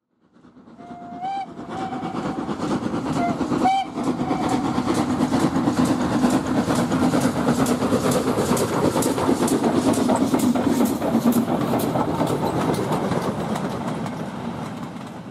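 Steam train: the whistle sounds twice in short blasts, then the train runs with a steady rumble and fast rhythmic clicking. The sound fades in at the start and dies away near the end.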